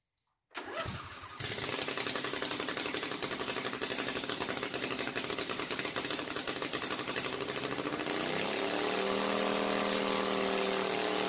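Briggs & Stratton Platinum 724cc 26 hp V-twin mower engine catching about a second in and running steadily on its first start after a crankcase seal replacement. About eight seconds in it speeds up, then holds at the higher speed.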